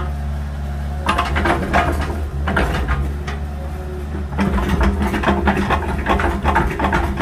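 Small agricultural excavator's diesel engine running steadily, with a rapid series of clanks and knocks from the working machine starting about a second in.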